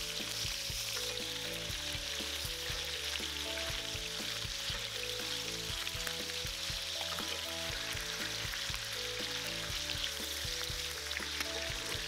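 Chicken thighs sizzling steadily in hot oil as they brown in an enameled cast-iron pan. Light background music plays under the sizzle.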